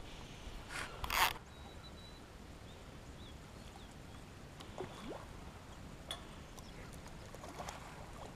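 Low wind rumble on the microphone, with a short loud rustle about a second in and a few faint clicks.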